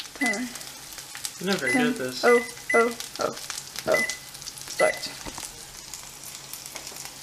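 Microwave keypad beeping as its buttons are pressed to set a ten-minute timer: about six short, high electronic beeps at uneven intervals, each with a light button click.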